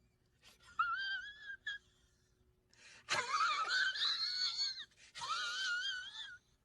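A person's strained, very high-pitched wheezy squeals, wavering in pitch, in three stretches with the middle one loudest and breathiest: the sound of someone choking back a cough.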